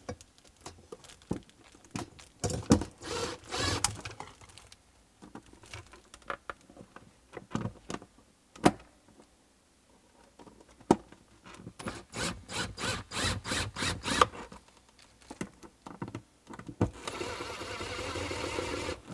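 Cordless impact driver driving a receptacle's mounting screws into a plastic cut-in box: two bursts of rapid hammering, about 3 s and 12 to 14 s in, with scattered handling clicks between them. Near the end the driver runs steadily for about two seconds.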